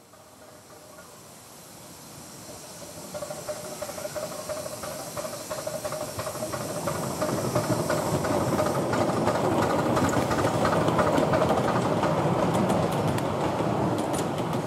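A 7¼-inch gauge miniature steam locomotive and its carriages approaching and passing, growing from faint to loud over the first several seconds. Its wheels clatter rapidly on the track, with a hiss of steam.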